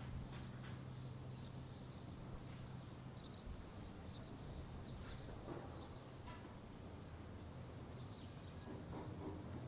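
Small birds chirping in short, high, repeated calls, scattered throughout. Beneath them a faint steady low hum drops away about three and a half seconds in and comes back near the end.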